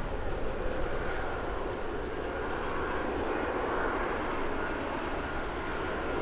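Boeing 787-9 Dreamliner on final approach with landing gear down: steady jet engine noise with a faint high whine.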